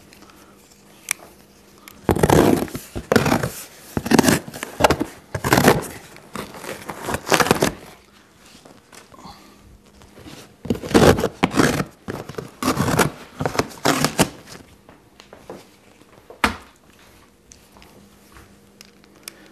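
Shipping labels being peeled and torn off a cardboard box, in irregular ripping and scraping bursts that come in two clusters, then one sharp click near the end.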